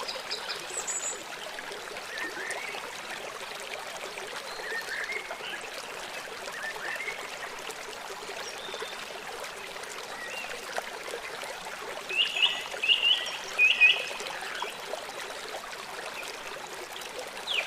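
Steady rushing of a small stream, with scattered bird chirps; about twelve seconds in, a bird gives a short run of louder, repeated notes.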